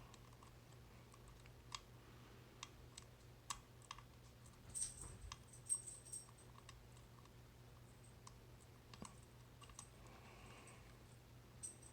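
Faint, irregular metallic clicks of a tubular lock pick working the pins of a tubular lock, with a brief cluster of louder clicks midway.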